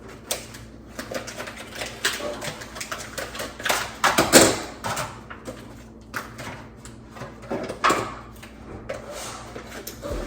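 Kitchen handling noises: a rapid, irregular run of clicks, rustles and knocks as hands work at packaging and cookware. The loudest knocks come about four seconds in.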